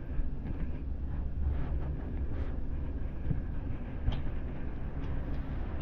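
A steady low rumble, with faint wet squishes now and then as hands rub shampoo into a baby monkey's soaked fur.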